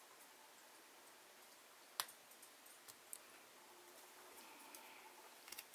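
Near silence with a few faint clicks and ticks, one sharper click about two seconds in, as fingers peel the thin protective film off a clear acrylic stamp block.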